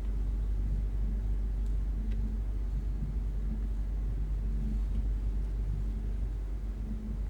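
Steady low rumble with a faint wavering hum above it, no distinct events.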